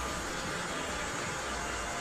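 Electric heat gun running, blowing a steady rush of hot air with a faint constant whine, as it heat-shrinks exterior windshield protection film onto the glass.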